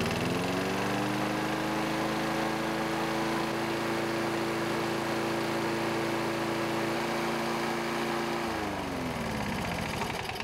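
Toro Recycler lawn mower's single-cylinder engine running at fixed throttle with its governor disconnected and diesel in the crankcase instead of oil. It picks up speed at the start, runs at a steady pitch, then slows and winds down near the end.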